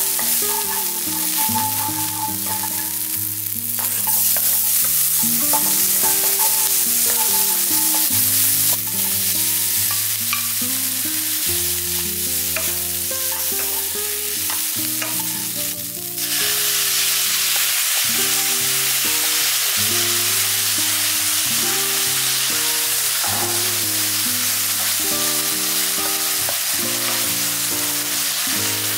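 Food frying in a pan with a steady sizzle, with a few light clicks in the first half. After a brief dip about sixteen seconds in, the sizzle comes back louder and fuller.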